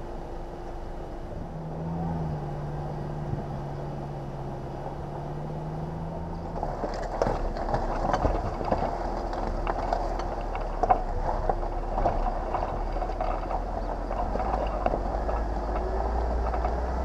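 Four-wheel-drive vehicle driving slowly off-road with a steady engine hum. From about six seconds in, frequent knocks and crunches join it as the tyres roll over loose rock.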